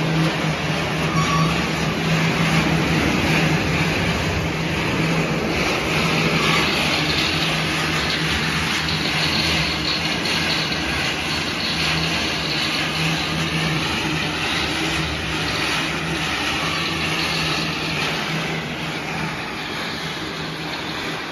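Corn-snack production line machinery running steadily: a constant low motor hum under a continuous rushing, rattling noise from the rotating stainless-steel drum tumbling corn snack sticks.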